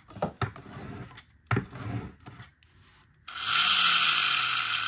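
Hot Wheels Pull-Back Speeders Heavy Hitcher toy truck's pull-back motor: a few light scrapes and clicks as the car is rolled back, then about three seconds in a sudden loud whirring noise as the wound spring spins the gears and wheels. The whir slowly drops in pitch and fades as the spring unwinds.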